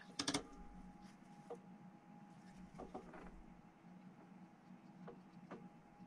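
Paintbrush rinsed in a water pot, a short clatter of the brush against the pot, followed by a few faint small clicks of handling, over a low steady hum.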